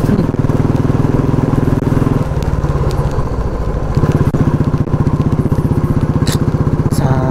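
Motorcycle engine running steadily while riding, with fast, even exhaust pulses. The engine note changes about two seconds in and again about four seconds in. A single short click comes about six seconds in.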